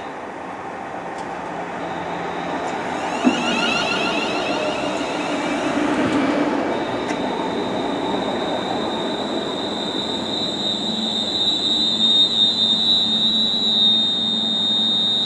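Class 350 Desiro electric multiple unit pulling into the platform and slowing to a stop. About halfway through, a steady high squeal sets in and grows louder.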